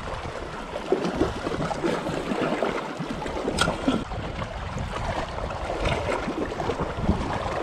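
Small waves lapping and gurgling against shoreline rocks, with wind on the microphone. A single sharp click comes about three and a half seconds in.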